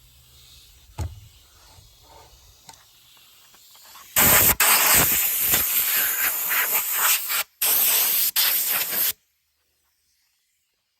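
A faint knock about a second in, then about five seconds of loud, steady sanding hiss as 220-grit sandpaper works over the wooden shell of a kick drum, with a short break near the end before it cuts off abruptly.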